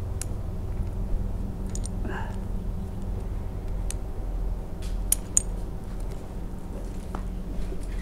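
Metal climbing hardware clinking: carabiners and rigging gear knocking together in a scatter of short sharp clicks. The two loudest ring out about five seconds in, over a steady low rumble.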